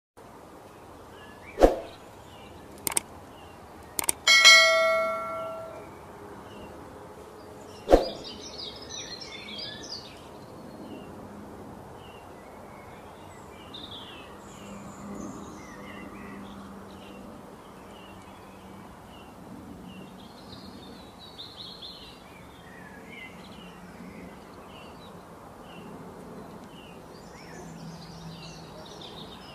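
A few sharp knocks and one ringing, bell-like ding in the first eight seconds, then faint scattered high chirps over a steady low hum.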